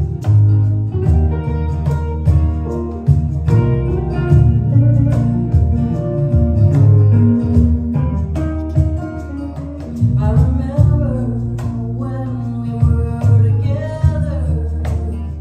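A live band playing: strummed acoustic guitars over bass and drums, with women's voices singing about ten seconds in and again near the end.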